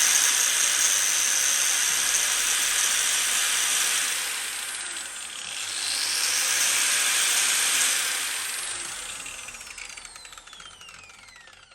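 New 125 mm, 1200 W variable-speed angle grinder running free with no load at maximum speed, a loud high whine. About five seconds in it slows briefly and speeds back up, then it is switched off about eight seconds in and winds down with a falling whine.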